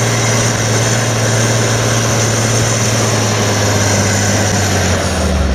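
John Deere 8420's six-cylinder diesel engine, chip-tuned to about 300 hp, running steadily under heavy load while pulling a Horsch Tiger 3MT cultivator at full working depth, with a high steady whine above the engine note. The engine note drops in pitch near the end.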